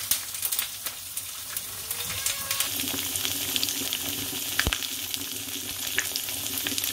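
A moka pot gurgling and hissing as the coffee comes up, then strips of streaky bacon sizzling and crackling in hot oil in a frying pan, with one sharper pop of fat past the middle. A steady low hum joins the sizzle about three seconds in.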